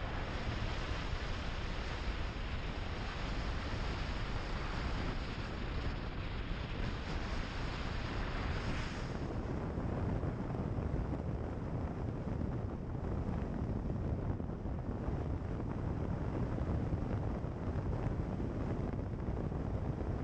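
A car driving along a gravel road, heard as steady wind rush on an outside microphone over the low rumble of tyres on gravel. The high hiss falls away about nine seconds in.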